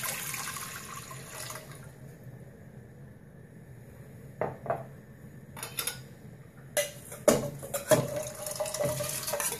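Water poured from a glass measuring jug into an aluminium pressure cooker, tailing off about two seconds in. A few light knocks follow, then from about seven seconds in washed rice and lentils are tipped from a steel bowl into the water with a spoon, giving a run of clatter and scraping.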